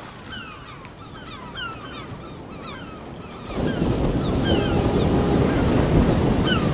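Ocean surf breaking on a sandy beach, with wind on the microphone. About three and a half seconds in, the rush of the waves suddenly becomes much louder. Small birds chirp throughout, with many short, high, falling notes.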